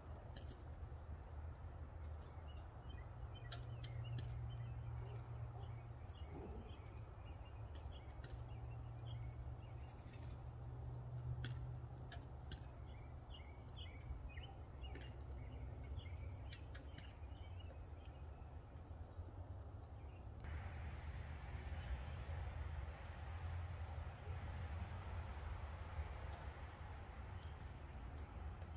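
Faint outdoor background: small birds chirping over a low steady rumble, with scattered faint clicks.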